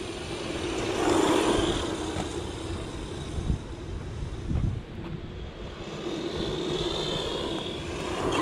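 A 1/10-scale PXtoys 9204E RC truck running on asphalt: its 540 brushed electric motor whines and its tyres rumble. The sound swells as the truck passes close about a second in and again near the end.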